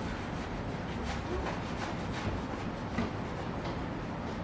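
Microfibre cloth rubbing a fine cutting compound over a car's painted panel in a polishing motion: soft, irregular rubbing strokes over a steady room hum.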